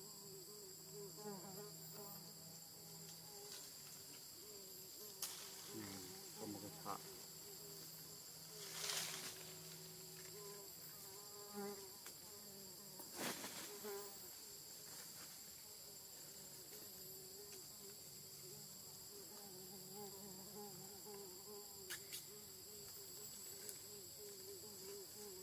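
Faint insect chorus: a steady high-pitched drone in two pitches, with a lower wavering buzz through most of it. A few scattered clicks and a brief rush of noise come about nine seconds in.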